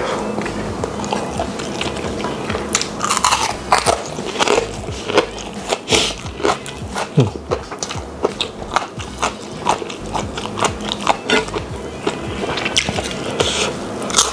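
Close-miked eating sounds of a person eating by hand: wet biting and chewing with many sharp mouth clicks and smacks, and some crunching.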